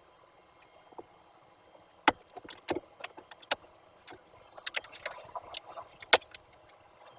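Irregular sharp knocks and taps from a peregrine falcon pecking and tearing at a seagull carcass on the nest box floor. The loudest knocks come about two seconds in and about six seconds in, with a quicker cluster between.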